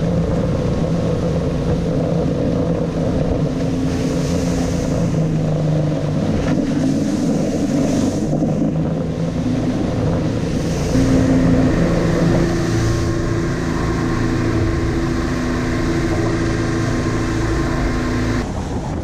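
Outboard motors running at speed as an aluminum boat crosses choppy water, with wind and water noise over the engine hum. The engine pitch shifts a few times.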